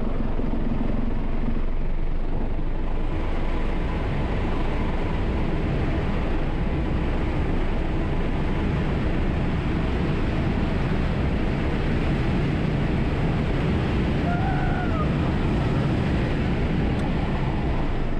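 Wind and tyre noise inside the cabin of a 2018 Tesla Model 3 Performance accelerating flat out past 120 mph. It is a steady loud rush that grows brighter after the first few seconds, with no engine note.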